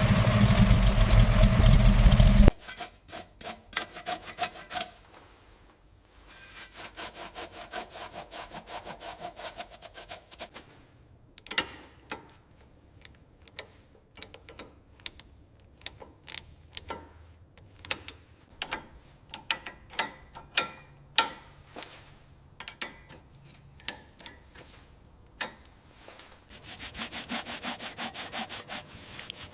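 A loud rushing noise cuts off sharply about two seconds in. It is followed by hand work on parts: repeated rubbing or scraping strokes and many sharp clicks and taps.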